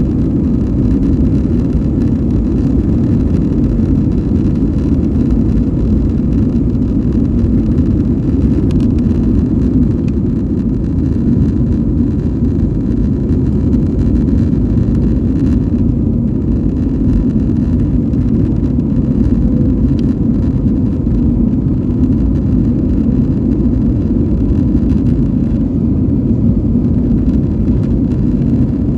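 Airbus A320 cabin noise: a steady, loud, deep roar of the engines and airflow with a faint steady hum above it.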